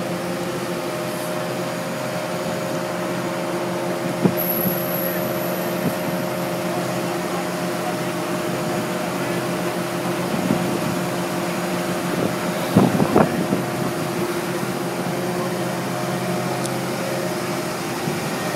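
Fire truck's diesel engine running steadily with an even droning hum. A few short knocks sound over it, with a brief clatter about 13 seconds in.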